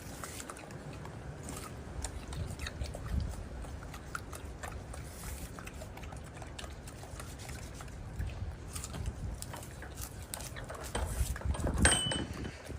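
Golden monkey biting and chewing fruit: a run of small, irregular crunching clicks, with a louder burst of noise near the end.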